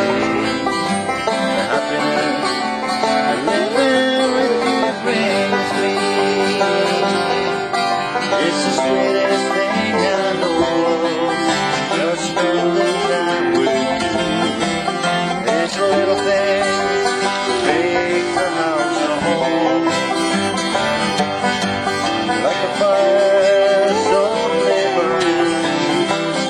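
Acoustic folk music played on plucked strings, with a bright, twangy tone and no break in the playing.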